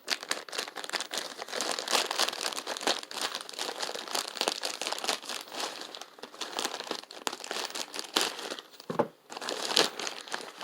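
Plastic bag being handled and opened, crinkling and rustling irregularly.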